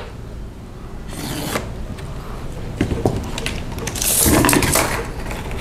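Hand tools scraping and rubbing on a polyurethane duct panel during measuring and marking, in short rasping bursts with a few clicks. The loudest rasp, about four seconds in, comes as a tape measure blade is pulled out across the panel.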